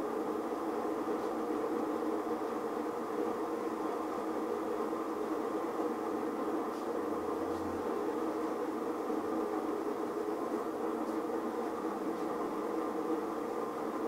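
Steady rushing background noise, level and unchanging.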